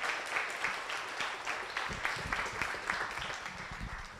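Audience applauding, many hands clapping at once, thinning out toward the end.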